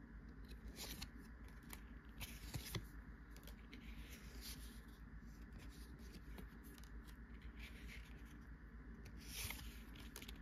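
Pokémon trading cards being flipped through by hand, one card slid against and behind the next: soft, scattered swishes and scrapes of card stock, over a faint low hum.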